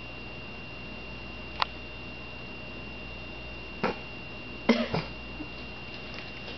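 A cat chewing on a pit bull's ear makes a few short, quiet animal noises: a single click about a second and a half in, then a couple of brief noises about four to five seconds in. A faint, steady high-pitched whine runs underneath.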